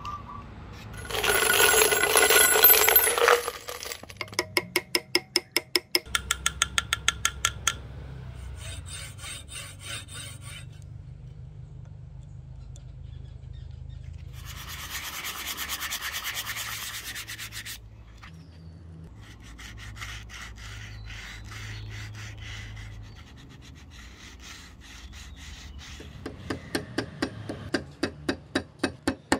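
Quick rubbing and scraping strokes on wood in several bursts, as when a wooden axe handle is shaped or smoothed by hand, with a louder hissing scrape about a second in.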